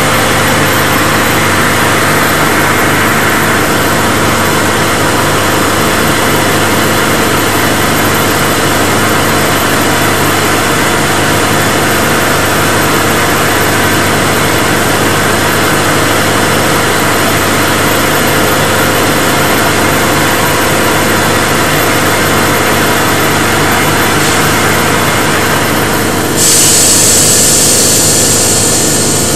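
Sauer WP4205 B3-6 reciprocating gas booster compressor running steadily, a loud even machine hum. Near the end a loud hiss starts suddenly and holds, easing off slightly.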